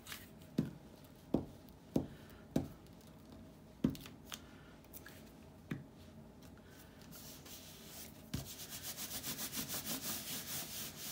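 Paper collage being glued by hand: a few scattered light taps as paper pieces and a glue stick are handled on the desk, then, near the end, a hand rubbing a freshly glued paper square flat onto the collage in quick, even strokes, about six a second.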